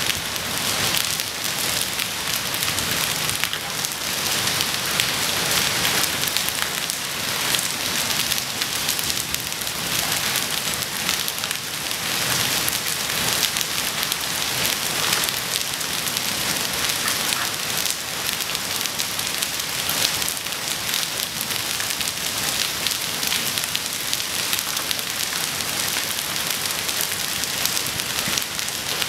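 Hail and rain pelting a wet paved path: a dense, steady patter of countless small impacts.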